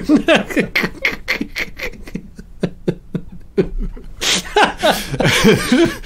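Men laughing in rapid, breathy bursts of chuckling, with a fuller, voiced stretch of laughter near the end.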